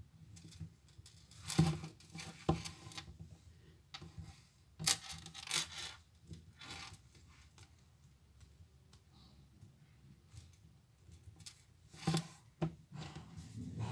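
Hands working a lump of play dough, with soft rubbing, scraping and light knocks of hands and dough against a tabletop, coming in short clusters: about two seconds in, around five seconds in, and again about twelve seconds in.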